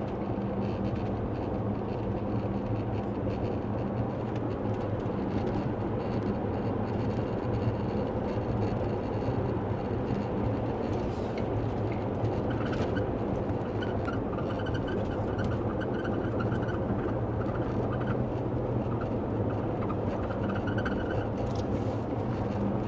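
A 2009 Nissan Murano driving, with a steady drone of road and engine noise. From about halfway through, a high-pitched squeak comes and goes in short repeated stretches. The owner places it at the passenger front, in the dash or wheel area, and its cause is unknown.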